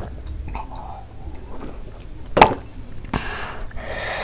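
A few faint swallows of water, then a glass mug set down on a wooden table with one sharp knock about two seconds in. Two short breathy exhales follow near the end.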